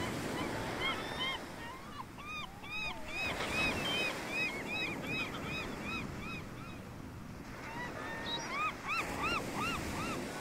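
A flock of birds calling, many short rising-and-falling honking calls overlapping, over a low steady rushing noise like surf. The calls thin out briefly past the middle and pick up again near the end.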